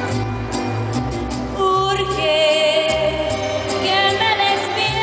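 A mariachi band playing, with strummed guitars over a bass line, and a woman singing the melody with vibrato; the music grows louder about two seconds in.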